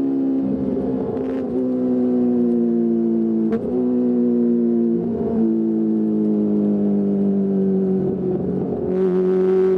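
Kawasaki ZX-25R's 250cc inline-four engine breathing through a DX Generation Pro Race aftermarket exhaust, held at high revs. It makes a steady, high-pitched note that sags slowly and is lifted again by the throttle several times.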